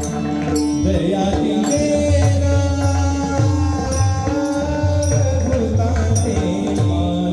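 Male devotional singing in the Marathi bhajan style, the voice entering about a second in over a steady drone, with a hand drum and small cymbals keeping a regular beat.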